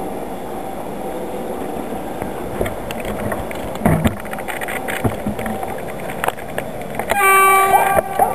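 An approaching electric locomotive's horn gives one steady blast of just under a second about seven seconds in. Before it there is a steady rumble and a few knocks.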